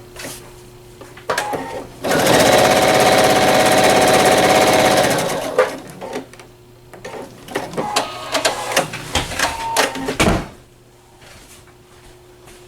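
PFAFF Quilt Expression 4.0 sewing machine stitching fast for about three seconds, followed by a run of irregular clicks and knocks that stop about ten seconds in.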